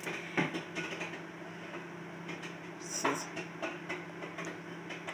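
Microwave oven running with a steady hum while a bag of popcorn cooks inside, with a few scattered pops.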